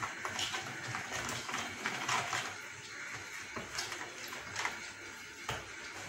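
Milk with yeast and sugar being stirred in a plastic mixing bowl: irregular soft scraping and swishing strokes, roughly one every second.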